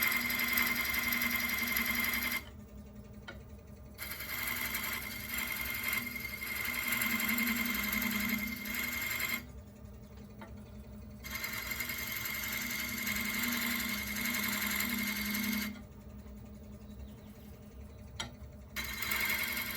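Wood lathe running while a turning chisel cuts the spinning goncalo alves hardwood, a steady hiss over the motor's hum. The cutting comes in four passes, broken by three short pauses where only the lathe's hum remains.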